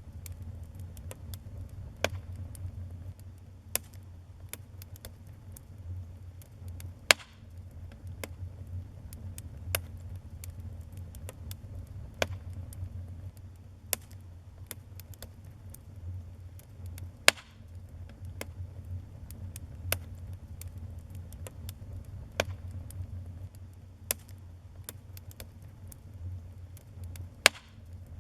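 Wood fire in a fireplace crackling: irregular sharp pops and snaps over a steady low rumble, with a few louder pops spaced through.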